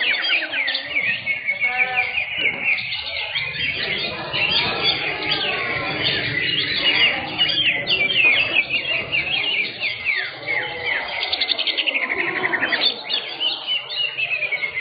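Several caged greater green leafbirds (cucak hijau) singing at once in a songbird contest. It is a dense, unbroken tangle of rapid chirps, trills and whistled phrases, all overlapping.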